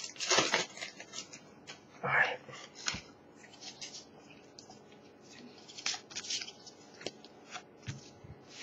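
A foil Pokémon trading-card booster pack being torn open and crinkled by hand, then the cards inside slid out and handled: a run of short crinkles, rips and scrapes, busiest in the first couple of seconds.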